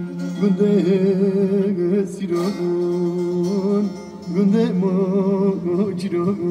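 Music: a wavering, ornamented sung melody over a steady drone, with a plucked string instrument. The music dips briefly twice, about two and four seconds in.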